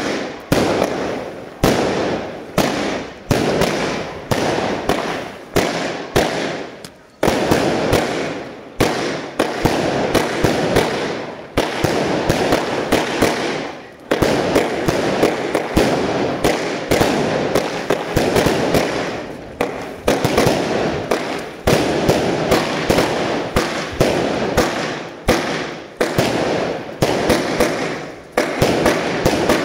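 Fireworks display fired from multi-shot firework boxes: a continuous run of bangs from bursting shells, about one to two a second, each dying away into the next. There are brief lulls about a quarter and half way through.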